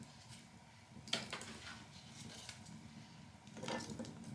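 Wood fire crackling faintly in an open fireplace, with a few sharp pops, a small cluster of them about three and a half seconds in.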